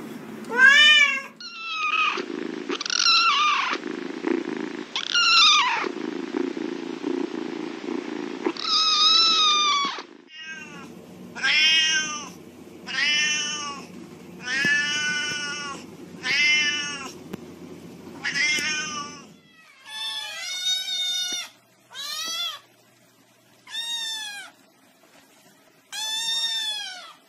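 Domestic cats meowing over and over, several cats in turn, among them a Siamese-type cat and young kittens. Each meow rises and falls in pitch. In the middle stretch they come in a steady run of about one a second.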